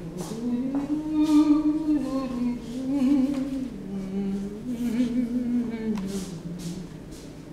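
A person humming a slow, wordless tune, holding notes that rise and fall smoothly, with a few short hissing breaths or sibilants between phrases.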